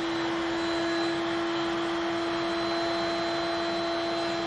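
Table-mounted router running at full speed with a steady high whine while a 3/4-inch router bit cuts a rabbet along the edge of a wooden board fed past it with a push block.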